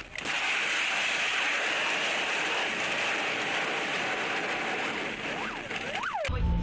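A car crash: a sharp impact right at the start, then a loud, steady rushing noise. A wailing siren rises and falls near the end.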